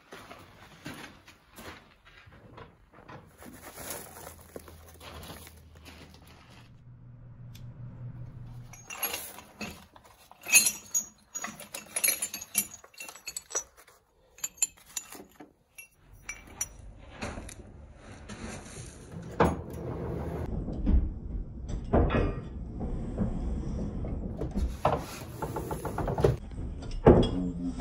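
Steel hand tools (chisels and punches) clinking and knocking together as they are handled in a leather tool roll. About halfway through, this gives way to the low rushing of a great leather forge bellows pumping air into a coal forge, swelling with each stroke of the lever.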